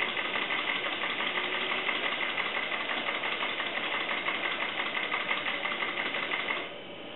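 PMR #3 model steam engine running on compressed air, with a fast, even exhaust beat and mechanical clatter as it turns a generator. The sound drops away sharply near the end, leaving a faint high whine.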